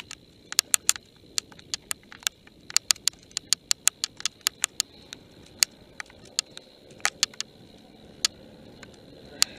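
Mountain bike jolting down a rough dirt singletrack: irregular sharp clicks and knocks, several a second, as the bike and camera mount rattle over bumps, over a low steady rumble of tyres and wind.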